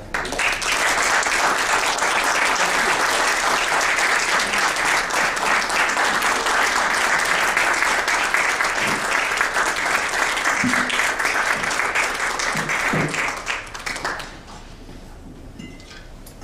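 Audience applauding, starting just after the award is handed over and dying away about fourteen seconds in.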